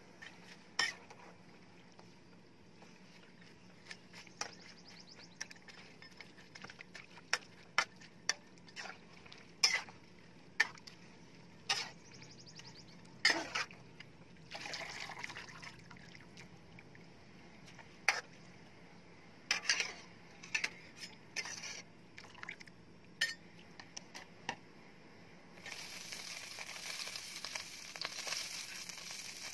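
A metal spatula and a wire strainer knock and clink against a metal wok as blanched water spinach is stirred and scooped out of boiling water, with some water sloshing. Near the end a steady sizzle starts in the emptied hot wok.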